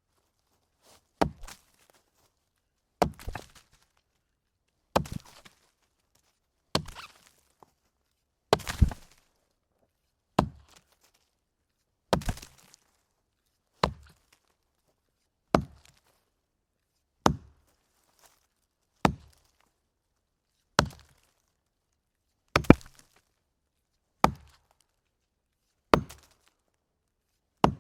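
Axe chopping into a log in a steady rhythm: about fifteen sharp wooden chops, one roughly every two seconds, each with a brief clatter after the blow.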